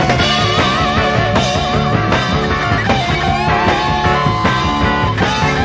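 Instrumental passage of a psychedelic rock song: a lead guitar plays held notes with wide vibrato over drums and bass.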